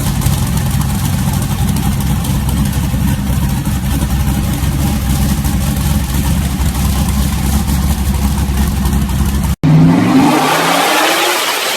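Tuned car engine running with a steady, choppy low rumble. Near the end it cuts abruptly to another car engine revving up loudly, with a high whistle falling in pitch.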